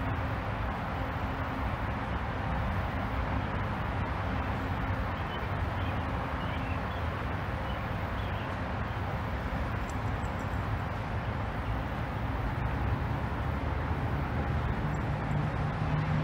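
Steady hum of city road traffic with a few faint bird chirps; a lower vehicle rumble grows louder near the end.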